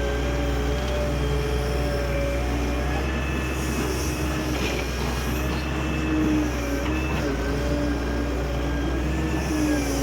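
Doosan excavator's diesel engine running steadily under load: a constant low drone with a higher whine over it that wavers in pitch.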